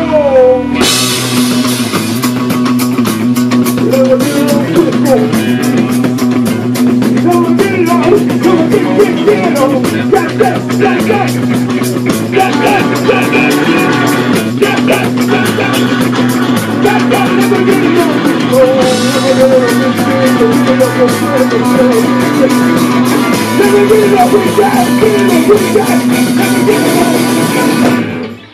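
Live rock band playing loud, with electric guitar and drum kit. The music cuts off sharply near the end as the song finishes.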